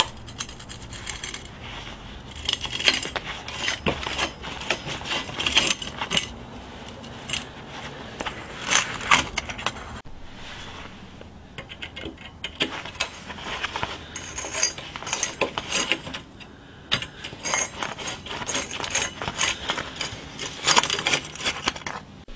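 Sharp metallic clinks and scraping in irregular flurries as a steel bar works inside a small brass lamp fitting seated on a threaded pipe.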